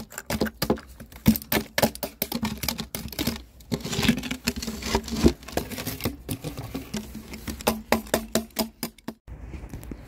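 Rapid, irregular tapping of a metal rod against hardened concrete caked between the cable entry ports of a fibre optic splice closure, chipping it loose. The taps come several a second and stop about nine seconds in.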